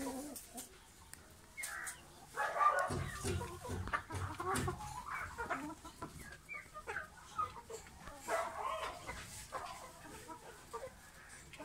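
Chickens clucking in short, irregular calls throughout, loudest about three seconds in.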